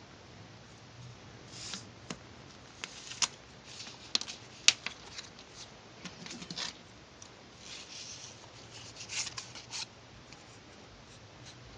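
Hands working craft materials: scattered short rustles, rubs and clicks, with a few sharp ticks about four to five seconds in.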